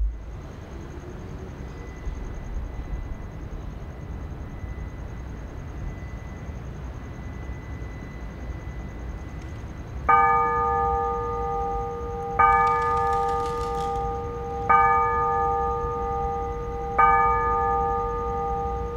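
A steady low background rumble, then about halfway through a bell begins tolling: one stroke of the same ringing note about every two seconds, four strokes in all, each left to ring on.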